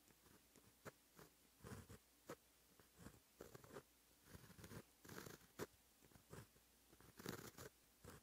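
Quiet pen strokes scratching across textured paper while handwriting Japanese characters: short irregular strokes with brief pauses between them, a couple of longer, louder strokes in the second half.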